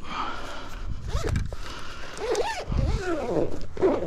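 A zip being pulled open on a fishing rod bag, with rustling as the gear is handled. From about a second in come several short, rising-and-falling calls.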